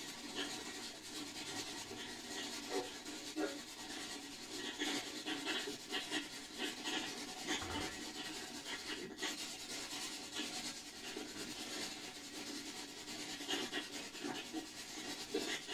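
Spirit-communication (ghost box) app on a phone playing at full volume: a steady scratchy static with short crackling flickers.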